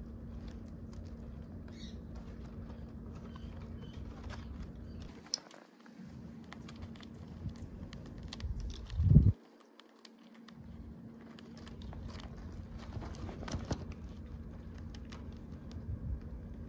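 Hamsters scratching and gnawing in their enclosure: light scattered clicks and patter over a steady low hum, with one loud knock about nine seconds in.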